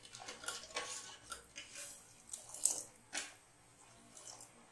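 Steel ladle scraping and clinking against a steel pot while stirring sugar syrup, in irregular strokes that die down near the end.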